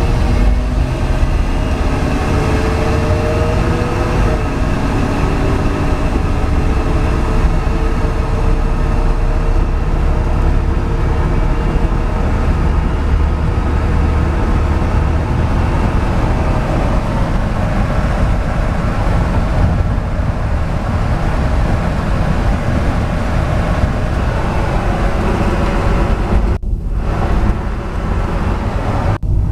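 1970 Chevrolet pickup truck driving at highway speed, heard from inside the cab: a steady engine drone with heavy low road rumble. The engine note climbs for a couple of seconds about two seconds in, and the sound breaks off briefly twice near the end.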